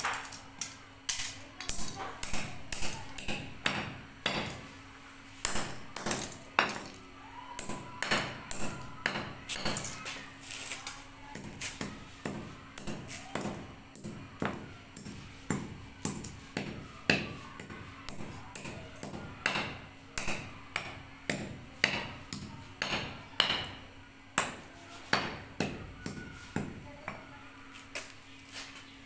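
A hammer repeatedly striking and crushing a computer mouse, with sharp cracking impacts roughly one to two a second. A faint steady hum runs underneath.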